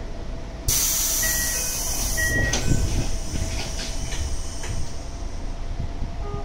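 Pneumatic sliding doors of a Tokyo Metro 8000 series subway car operating: about a second in, a sudden loud blast of air hiss that fades over a couple of seconds, followed by a few knocks as the doors run, over the steady rumble of the stopped train. The loud air burst is the odd noise that earns these doors their 'bomb door' name.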